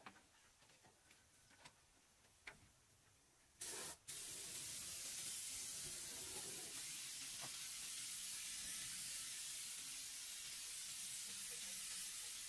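After a few faint light taps, compressed air starts hissing steadily from the air compressor's hose about three and a half seconds in. It breaks off for a moment, then carries on evenly.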